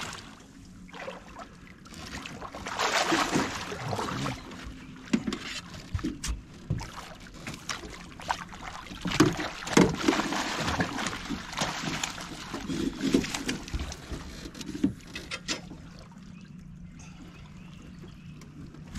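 A hooked catfish thrashing and splashing at the surface beside an aluminium boat while it is scooped into a landing net, with a few sharp knocks. The splashing is heaviest about halfway through and dies down over the last few seconds.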